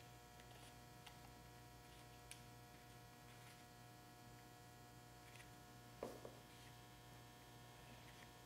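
Near silence: a steady low electrical hum with a few faint ticks and one soft knock about six seconds in.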